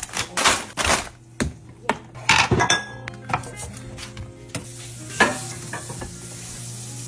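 Food-prep handling at a kitchen counter: a quick run of sharp knocks and taps from meat packaging, a knife and a cutting board being handled, then a steady hiss through the second half.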